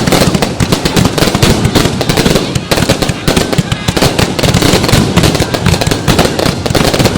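Fireworks display: a dense, continuous barrage of bangs and crackles, many bursts each second with no pause.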